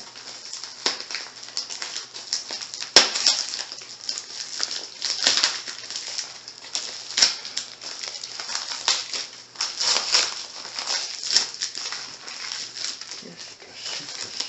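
Clear plastic wrap, packing tape and brown paper crinkling and tearing as a heavily taped parcel is unwrapped by hand, in a dense run of irregular crackles. One sharp click about three seconds in is the loudest moment.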